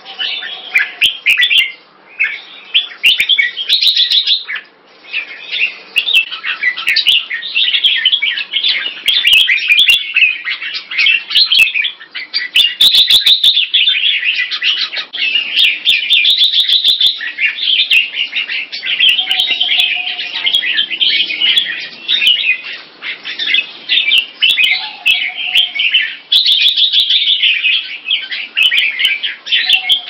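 Caged red-whiskered bulbuls singing and chattering in a rapid, almost unbroken stream of high notes, with brief pauses about two and five seconds in.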